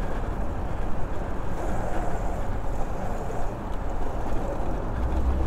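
Steady wind noise on the microphone and a low rumble from riding a Burromax electric mini bike, with a low hum coming in near the end.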